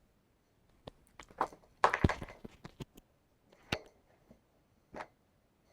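A few scattered knocks and taps, about six over a few seconds, with a small cluster of them about two seconds in, as someone moves about and handles things at a workbench.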